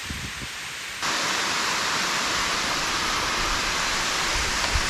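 Water running down a concrete dam spillway and splashing into the pool at its foot, a steady rushing noise that suddenly becomes louder about a second in.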